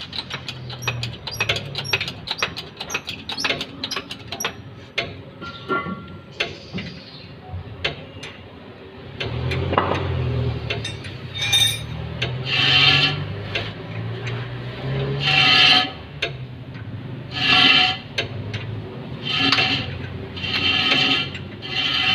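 Ratchet wrench clicking rapidly in quick runs as the transmission bolts are run in, for roughly the first eight seconds; then a series of louder, ringing metallic strokes about two seconds apart.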